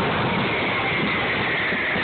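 Fireworks display with many shells, comets and fountains going off at once: a dense, unbroken crackling and hissing rush with no single bang standing out. A high whistle, slowly falling in pitch, rides on top from about half a second in.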